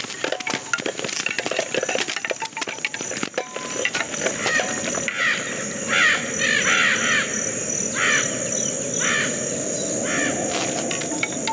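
Film sound effects with no dialogue or music. Dense crackling and clicking rustles run for the first few seconds, then give way to a steady buzzing whir. Over the whir come five or six short, harsh, caw-like screeches.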